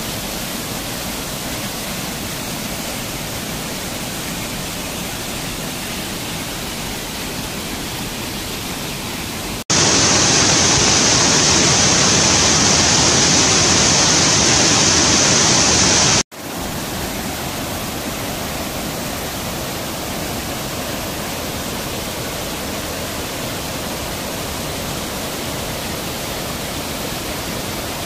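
Waterfall: a steady rush of falling water. About ten seconds in it cuts abruptly to a louder, hissier stretch of about six seconds, then cuts back to the first level.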